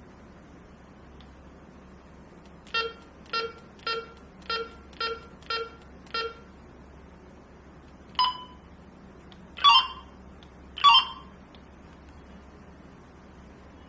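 Electronic beeps from a Retevis RB628 walkie-talkie's buttons: a run of seven short identical beeps about two a second, then a single higher beep, then two louder beeps about a second apart.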